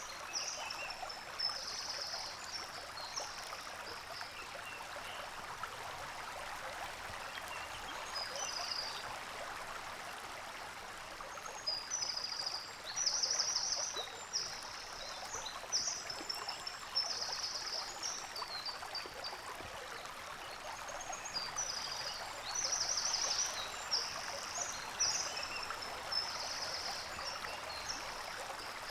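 Steady rush of flowing water, with high chirps and trills coming in bursts over it several times.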